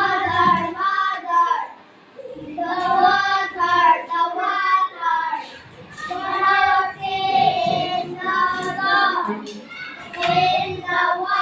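A child singing a song in four phrases with short breaths between them.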